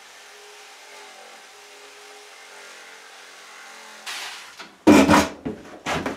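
Corded electric jigsaw running steadily as it cuts a scrap wooden board, stopping about four seconds in. A few loud knocks and clatter follow near the end.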